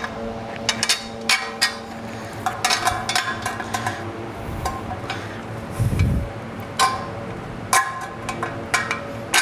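Long steel bolt clinking and scraping against the bench's mild-steel bracket plates and square tube as it is worked through the lined-up holes: a string of sharp metallic clicks and taps, some ringing briefly. A dull thump comes about six seconds in as the frame parts are shifted.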